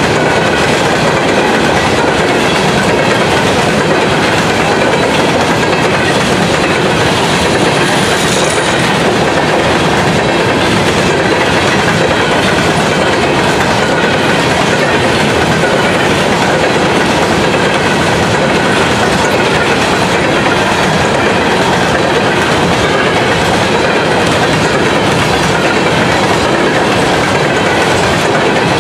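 Coal hopper cars of a long freight train rolling past at close range: a loud, steady sound of steel wheels running on the rails, with faint ringing tones above it.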